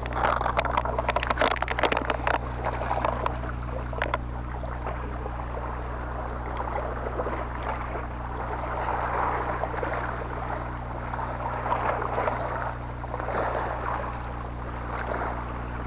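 Sea water washing and splashing against rocks over a steady low hum, with a cluster of sharp clicks and knocks in the first few seconds.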